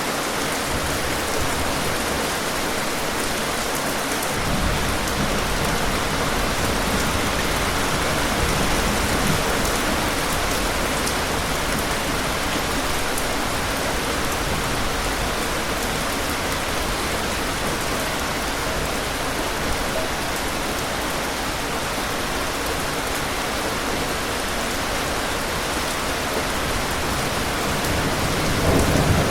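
Steady, dense rain hiss. About four seconds in, a deep rumble of distant thunder comes in beneath the rain, and it swells louder near the end.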